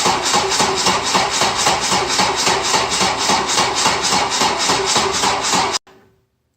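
Starter motor cranking the BHW 2.0 TDI pumpe-düse diesel with an even, rapid pulsing churn, without the engine firing, then cutting off abruptly near the end. The starter is failing and no longer turns the engine over quickly enough to start it.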